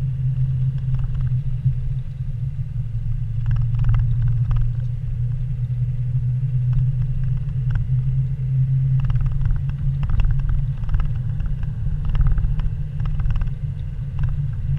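Steady low engine and road rumble heard from inside a car's cabin as it drives slowly along a rough forest road. Scattered light knocks and rattles come through, most of them in the second half.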